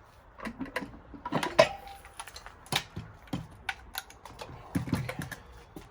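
Irregular metal clanks and knocks as the transmission is worked loose from a Honda K24 engine. The loudest knock, about a second and a half in, rings briefly.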